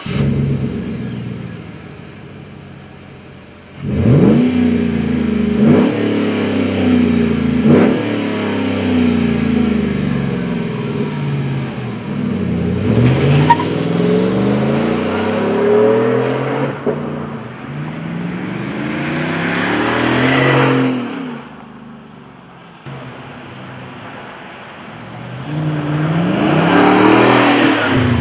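2014 GMC Sierra pickup running through a MagnaFlow aftermarket exhaust: the engine settles to a lower idle after a loud start, then is revved in a series of quick blips, the exhaust note rising and falling each time. Later come two longer, louder swells with a quieter stretch between, as the truck pulls away.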